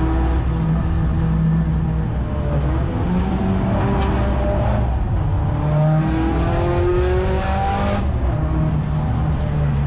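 A car's engine heard from inside the cabin, pulling hard on a fast run. Its pitch climbs through the revs and drops back at gear changes, one about three seconds in and another about eight seconds in.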